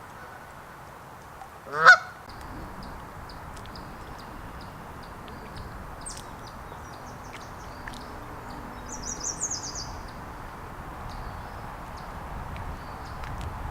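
A goose honks once, loud and short, about two seconds in. Small songbirds chirp faintly throughout, with a quick high trill around the middle, over a steady low hiss.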